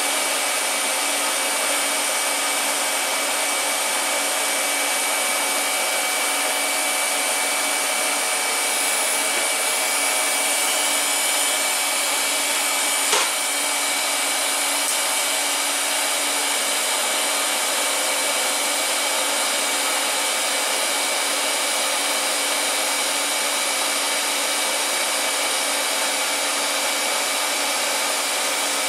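Steady blower hiss with a few faint steady tones, keeping the same level whether or not the welding arc is lit, and one sharp click about thirteen seconds in.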